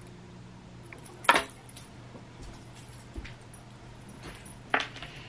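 Two sharp clicks, about a second in and near the end, with a few fainter ticks between them, over a low steady hum.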